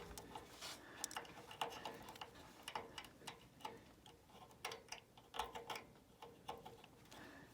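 Faint, irregular small clicks and taps of wire-lead connectors being pushed onto the terminals of a furnace blower-motor capacitor.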